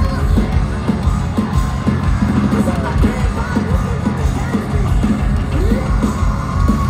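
Heavy metal band playing live at full volume through a PA, with a steady drum beat under distorted guitars, heard from within the crowd.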